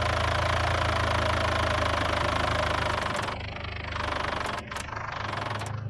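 Tractor engine idling steadily, easing slightly after about three seconds, with a few short clicks near the five-second mark.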